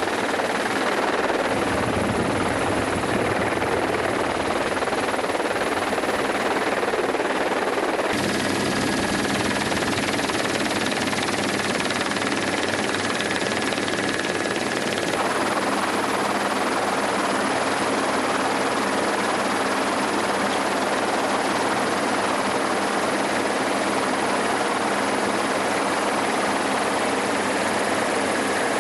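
Helicopter engine and rotor noise, a steady dense rush with a faint whine, changing in tone about eight seconds in.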